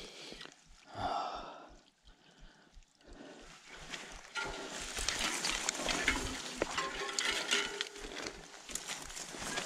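Mountain bike with fat tyres rolling over a muddy, leaf-covered forest trail: the tyres crackle over leaves and ground, with small rattles from the bike, growing louder about four seconds in. A couple of heavy breaths from the rider near the start.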